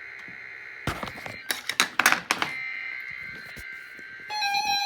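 NOAA Weather Radio weekly test signal: a steady buzzing data tone, broken by several loud crackling clicks a second or two in. About four seconds in, a strong steady warning alarm tone starts.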